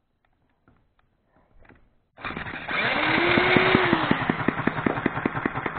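An electric drill spins up a small single-cylinder model six-cycle gas engine about two seconds in. The drill motor's whine rises and falls, and the engine fires in a rapid, even beat of pops that keeps going as the drill noise fades. It runs on a microswitch instead of points, which the owner thinks keeps it from running well.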